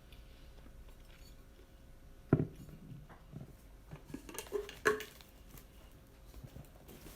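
Tableware being handled on a table: one sharp knock a couple of seconds in, then a run of light clicks and a second sharp knock about halfway through.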